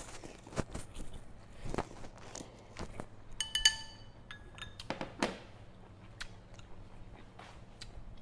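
A man eating beef noodle soup with chopsticks, chewing and slurping, with small clicks of chopsticks and crockery. About three and a half seconds in, a bowl gives a single short, ringing clink, the loudest sound.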